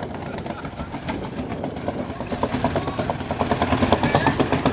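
Vehicle engine running with a rapid pulsing beat, growing slightly louder toward the end.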